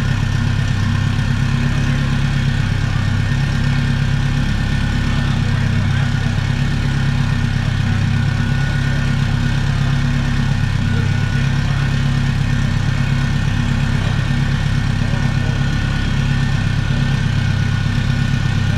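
Turbocharged Subaru STI flat-four engine with a built block and a large Precision turbo, idling steadily with no revving.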